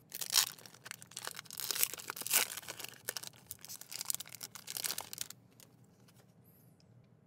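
Foil Pokémon card booster pack being torn open and crinkled in the hands, a dense crackling rustle that stops about five seconds in.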